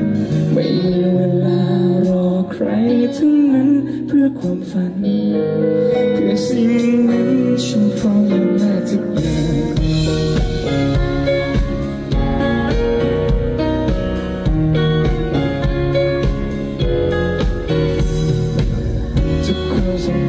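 Live amplified music: a man singing a ballad while playing an acoustic guitar. A deeper bass part comes in about nine seconds in.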